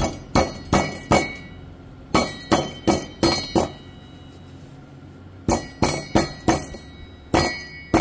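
Hammer taps on the driver-side catalytic converter of a 2016 Chevy Tahoe's 5.3 V8 exhaust, struck in three quick runs of blows with pauses between, each blow ringing with a glassy clink. The clink is loose pieces rattling inside the shell: the converter's inner substrate has separated and broken apart.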